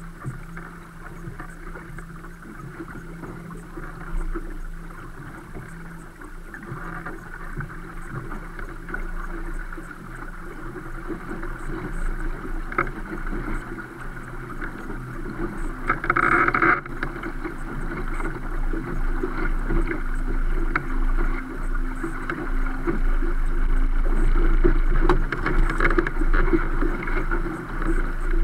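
Water rushing along the hull of a DS16 sailboat under sail, with wind on the microphone, growing steadily louder as it goes. There is a brief louder rush a little over halfway through.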